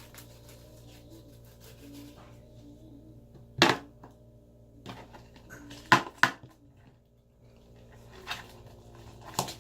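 Hands kneading sticky homemade glitter slime, with a few sharp smacks as the slime is pulled and slapped: one about a third of the way in, two in quick succession a little past halfway, and one near the end.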